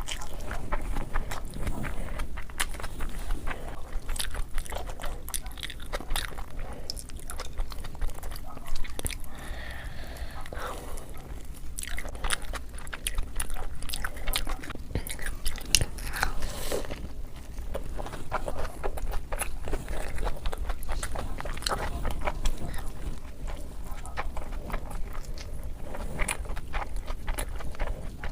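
Close-miked eating: a person biting and chewing crunchy food, a steady stream of crisp, irregular crunches and mouth sounds.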